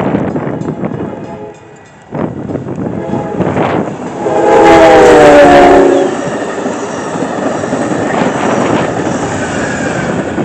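Train horn sounding one long multi-tone blast of about a second and a half, dipping slightly in pitch as it ends, followed by the steady rumble of the train's cars rolling past. Wind buffets the microphone in gusts before the horn.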